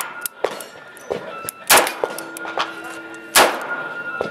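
Two loud pistol shots about a second and a half apart from a Colt double-action-only 5-inch Government model pistol being fired, with fainter sharp cracks between them.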